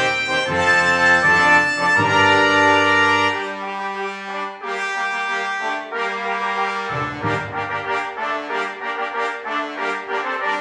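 Brass music playing: slow, held chords that change pitch every second or so.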